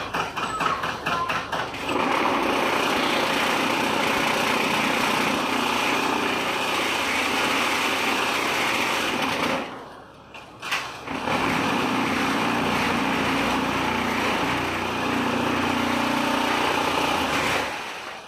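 Concrete block making machine running: a rapid clatter of regular knocks for the first two seconds, then a steady, loud vibrating rattle, as the vibration motor shakes the mould to compact the concrete. The rattle stops for about a second, with a single knock, roughly ten seconds in, then runs again and cuts off near the end.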